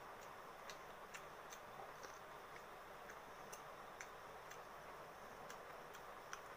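Faint, regular ticking, about two sharp ticks a second, over a steady low hiss.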